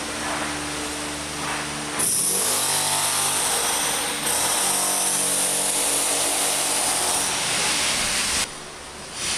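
A power tool running hard in two loud stretches of about two and four seconds, over a steady machine hum, then cutting off abruptly near the end; typical of floor demolition or prep work before tiling.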